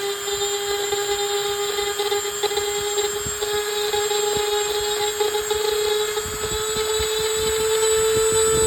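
A small electric power tool running steadily with a whine that creeps slightly higher in pitch, with irregular scraping knocks as it works against something.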